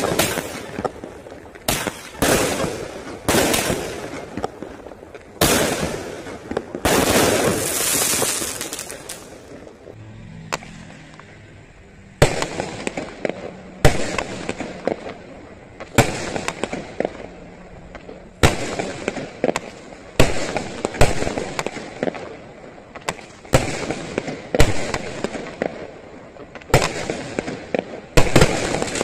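A 12-shot consumer firework cake firing: a rapid series of sharp, crisp bangs as the shells launch and burst, each with a brief crackling tail. A short lull comes about ten seconds in, and then the bangs resume one every second or two.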